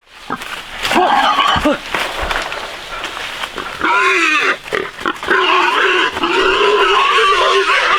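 Piglets squealing: a few short squeals in the first two seconds, then near-continuous wavering squealing from about four seconds in.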